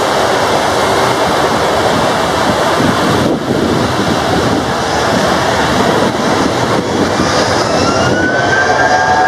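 Steady dense hiss of heavy rain and jet noise as a Super Air Jet Airbus A320-232's IAE V2500 engines spool up for the take-off roll on a wet runway; a rising engine whine comes in about seven seconds in.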